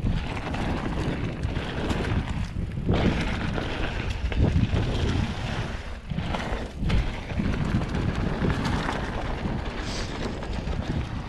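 Wind buffeting the microphone while a mountain bike rolls fast over a dry dirt and gravel trail, its knobbly tyres rumbling and crunching, with occasional knocks as it runs over bumps.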